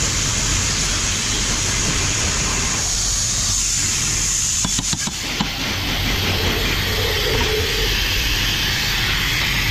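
Steady, loud mechanical noise of a workshop, with a few sharp metal clicks about halfway through as the rear wheel hub is handled.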